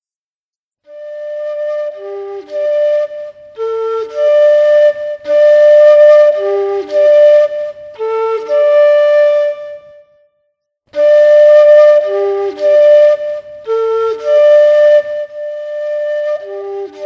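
Bansuri bamboo flute playing a slow melody alone, with no drum. The phrase stops for about a second midway and then the same phrase starts again.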